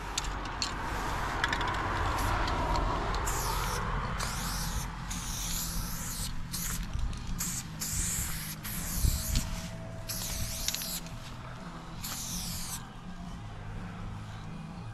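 Aerosol spray-paint can hissing in a series of short bursts, each about a second long with brief pauses between them, as paint lines go onto a concrete wall. A couple of sharp knocks come about halfway through.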